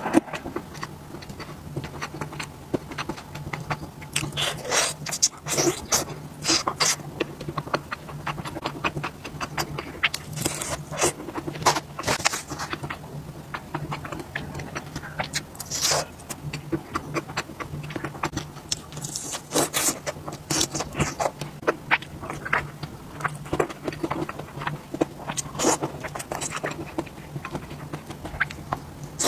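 Close-miked chewing of spicy skewered food: many short wet mouth clicks and crunchy bites, with a faint low steady hum underneath.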